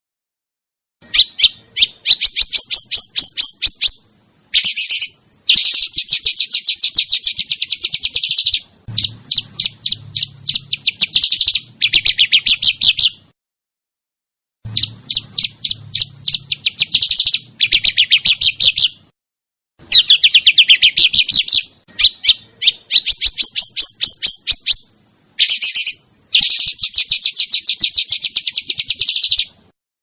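Caged songbird singing in rolling trills: rapid series of sharp, high repeated notes, delivered in phrases of one to three seconds with short pauses between them.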